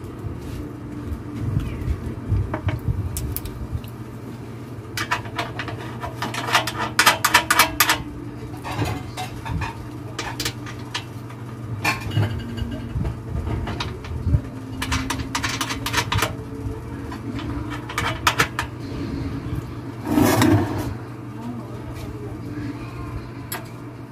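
Hand tools and small metal parts clicking and rattling against a Sumo SR150M gasoline engine while it is worked on, with a dense run of quick clicks about five seconds in, over a steady low hum.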